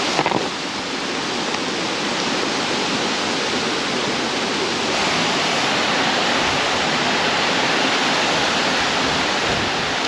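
Creek water rushing steadily over rocks, a little louder about halfway through, with one brief louder sound right at the start.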